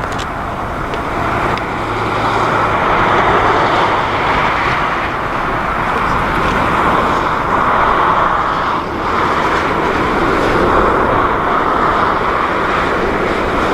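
Jet airliner engines, a loud steady rush with a brief dip about nine seconds in.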